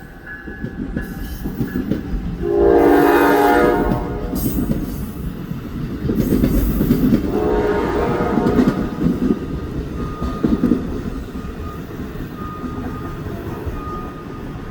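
NJ Transit train sounding its horn in one long blast about two and a half seconds in, then rumbling past with wheels clattering over the rail joints, loudest in the middle and easing off near the end.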